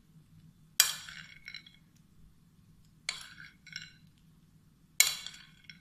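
A metal spoon clinking against a plate while almonds are spooned onto a dish: three pairs of short, sharp clinks, each pair about two-thirds of a second apart.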